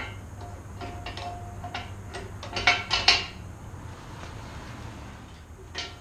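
Steel-on-steel clinks and clanks as a compact tractor's three-point top link is handled and fitted to a steel back blade's mast. There is a brief metallic ring about a second in, and the loudest clanks come in a quick cluster about two and a half to three seconds in, over a low steady hum.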